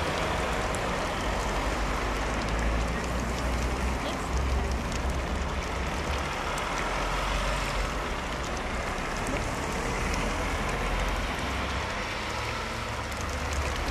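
Steady outdoor street ambience: an even hiss with a low, uneven rumble of wind on the microphone, with no distinct events.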